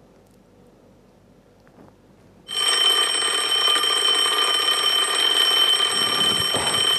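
A wake-up alarm for the pre-dawn sahur meal starts suddenly about two and a half seconds in and keeps ringing, loud, shrill and steady. Before it there is only quiet room tone.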